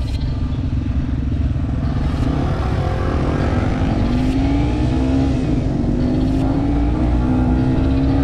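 Yamaha TW200's single-cylinder four-stroke engine running under way over a steady low rumble. From about three seconds in its pitch climbs in repeated rising sweeps as it accelerates.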